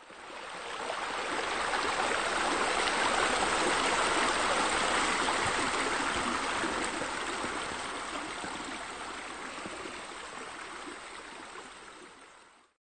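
Water splashing steadily into a pool from its water features, a sound effect laid over a pool-design animation. It fades in over the first two seconds, is loudest around four seconds in, then eases down and cuts off just before the end.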